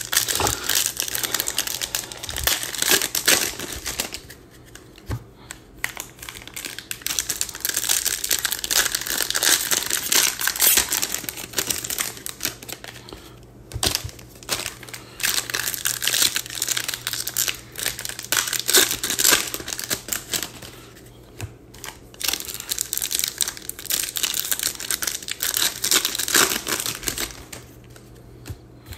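Wrappers of Panini Mosaic baseball hobby card packs being crinkled and torn open, coming in bursts with a few short pauses.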